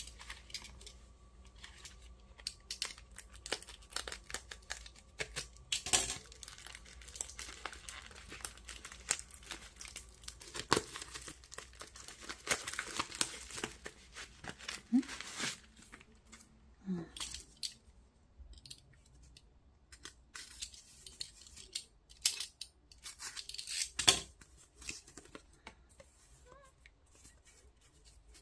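Packaging being torn open and crinkled by hand in a small room: irregular rustling, tearing and crackling throughout, with sharper rips about six seconds in and again near the end.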